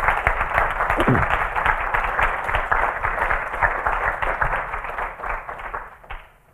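Audience applauding at the end of a lecture: many hands clapping together, which dies away about six seconds in.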